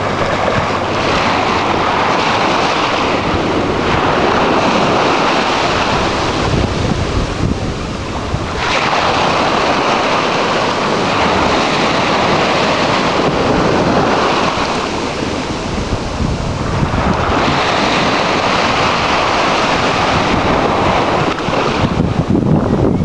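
Small Gulf of Mexico waves breaking and washing up the sand at the water's edge: a steady rush of surf that swells and eases every few seconds, with wind buffeting the microphone.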